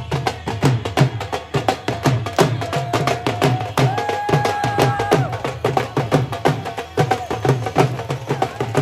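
Dhol drums played in a quick, steady beat, with a single held note sounding for about a second around the middle.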